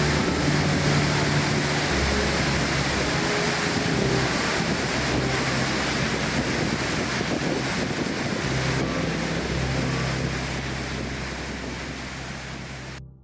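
Steady rush of the Guzgarf waterfall's falling water, with low held music chords beneath it that change every few seconds. Both fade away near the end.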